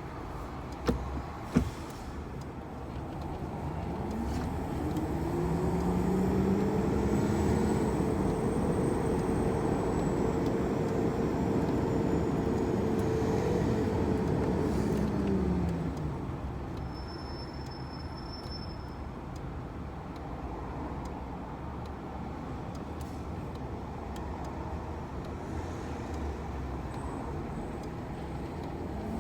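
Heavy tractor-trailer's diesel engine pulling: it climbs in pitch over a few seconds, holds steady, then drops back around the middle and runs lower, as a 16-speed manual truck does between gear changes. Two sharp clicks near the start and a brief high whistle just after the drop.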